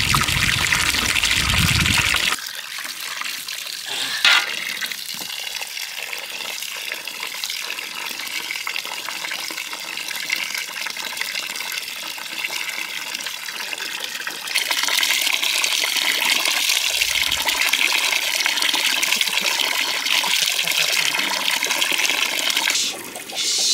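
Water running steadily, pouring and splashing, as when washing food or filling a pot. It is louder for the first two seconds and again over the last third, with one short knock about four seconds in.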